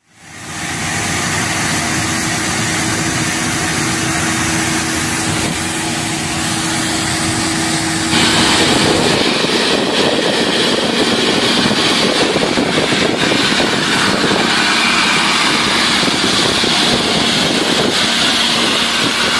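Osprey 2000 high-pressure water-jetting head and its truck running, a loud steady hiss of water jets blasting line paint off the pavement, with a steady hum under it. About eight seconds in the sound changes abruptly to a brighter, louder hiss without the hum.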